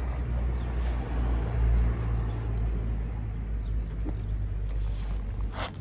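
Wind rumbling on the microphone, swelling and easing in gusts, with a few faint clicks and a short scrape near the end.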